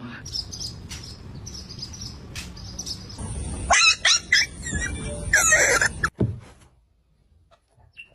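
A dog barking, two short groups of sharp barks over a steady background noise, with the sound cutting off about six seconds in.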